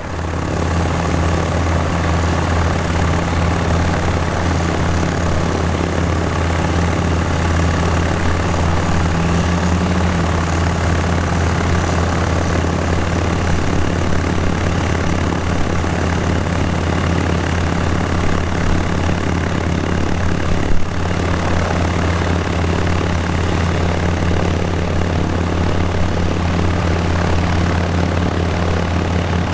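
Moyes Dragonfly C ultralight's engine and pusher propeller running, a steady low drone that holds an even speed, with a single brief knock about two-thirds of the way through.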